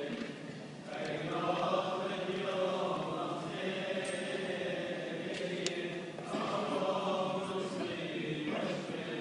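Voices chanting a liturgical chant in a church, sung in long phrases with brief pauses between them.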